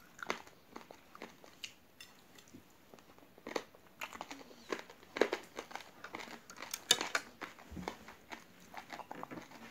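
Close-up biting and chewing of raw uncooked rice grains stuck to chewy jelly, in irregular crunches, the loudest about three and a half, five and seven seconds in.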